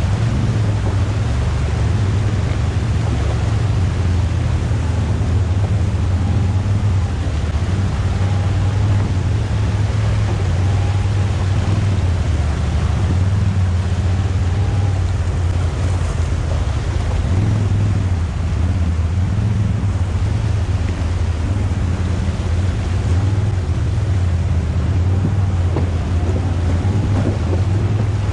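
ATV engine running steadily while riding, a constant low drone, mixed with a rushing noise of creek water and wind on the microphone.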